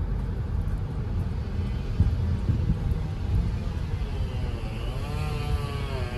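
Car cabin road noise while driving slowly: a steady low rumble with occasional light knocks. From about four seconds in, a pitched whine joins it, wavering down and up.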